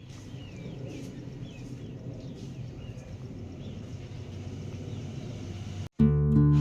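Low rumbling outdoor background with a few short, falling bird chirps in the first few seconds. It cuts off just before six seconds in and strummed acoustic guitar music starts.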